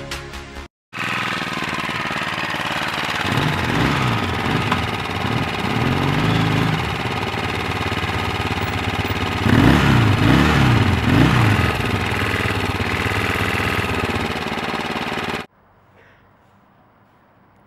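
Motorcycle engine running and revved repeatedly, its pitch swinging down and up in two bouts of revving. The engine sound stops abruptly near the end, leaving only faint outdoor background.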